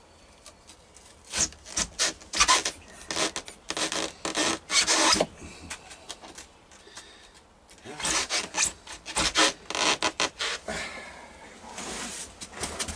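A hand tool scraping and rasping at the boat's floor in two bouts of quick, rough, irregular strokes, the first starting about a second in and the second around eight seconds in.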